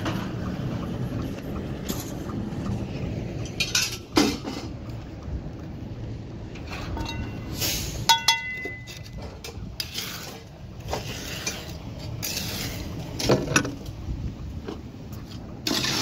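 A concrete mixer truck running with a steady low rumble for the first few seconds, then metal clinks and knocks of a trowel against a metal pan holding wet concrete, one clink ringing about eight seconds in.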